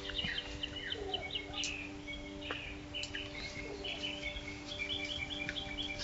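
Woodland birds singing: short high chirps and phrases, with a run of quick repeated notes near the end, over a steady low hum.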